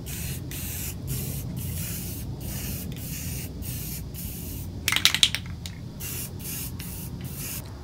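Aerosol clear coat spraying onto a sanded plastic headlight lens, a steady hiss broken by short gaps about twice a second as the coat is laid on in passes. A brief loud rattle comes about five seconds in.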